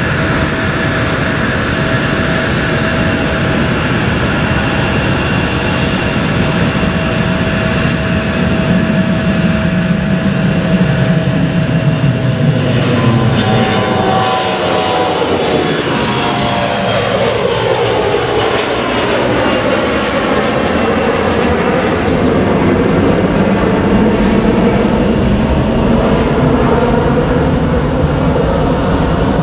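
Regional airliner's engines passing close by: a steady whine that drops in pitch about thirteen seconds in as the aircraft goes past, followed by continued loud engine noise.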